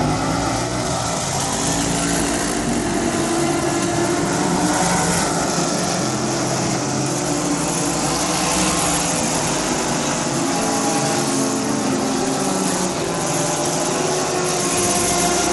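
Engines of a pack of GT race cars running together as they roll past behind a pace car, a steady, dense mix of overlapping engine notes.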